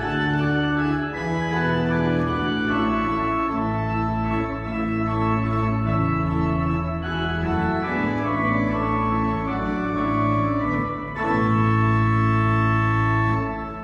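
Church organ played with both hands: full sustained chords that change every second or two, ending on a long held final chord that is released and dies away near the end.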